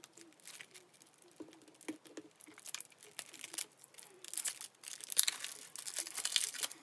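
Album packaging being handled and unwrapped: scattered small clicks and rustles, then denser crinkling of plastic wrap from about four seconds in.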